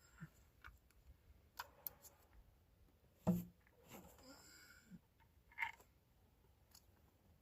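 Faint, scattered clicks and knocks of hand tools and engine parts being handled, with one louder thump a little over three seconds in.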